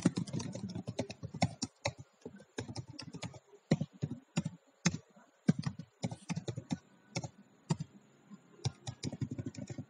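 Computer keyboard keys clicking in irregular runs of typing, with brief pauses between runs.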